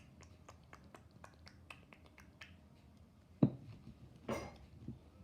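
Light clicks and taps of small plastic toy pieces being handled. Then a single thump about three and a half seconds in and a brief rustle a second later.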